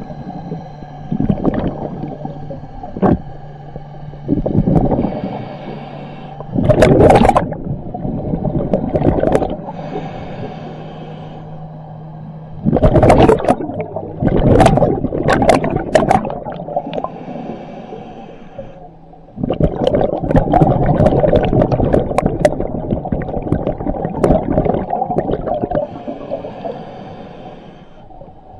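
Scuba diver breathing through a regulator underwater: hissing inhalations alternating with long, noisy bursts of exhaled bubbles, three breaths in all. A low steady hum runs underneath until about two-thirds of the way through.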